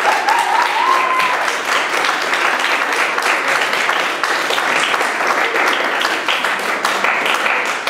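Audience applauding steadily after a performance, with one brief rising call over the clapping in the first second or so.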